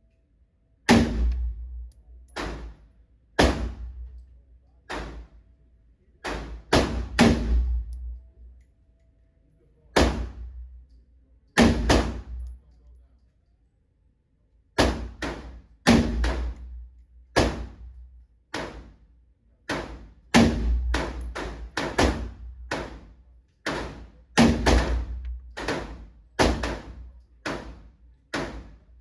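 Gunshots at a shooting range: about thirty sharp reports at irregular intervals, some spaced a few seconds apart and others in quick runs of several shots in a row, each with a short echoing tail.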